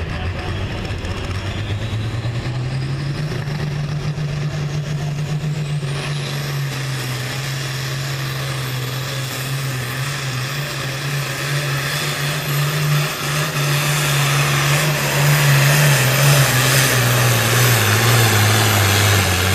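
Hot farm class pulling tractor's diesel engine running flat out under load as it drags a weight-transfer sled. Its pitch climbs in the first few seconds and then holds steady, it gets louder in the second half, and the pitch falls away near the end of the pull.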